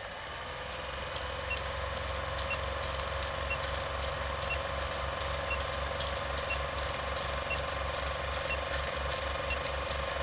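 Vintage film projector running, a rapid mechanical clatter under a steady hum, with film crackle and pops and a small tick about once a second.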